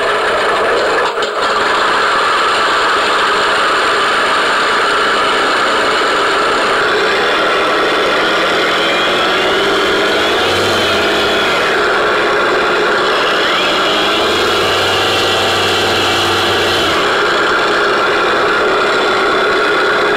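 Mr RC Sound 4.1 sound module playing a simulated piston aero-engine running sound on an electric FMS P-51 Mustang model, mixed with the whir of its spinning propeller. The sound is steady, with a few brief changes in pitch around the middle.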